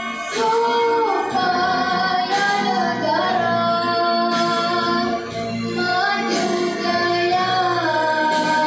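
A Year 6 schoolboy's unbroken voice singing a patriotic song solo over a backing track, holding long notes and sliding between pitches.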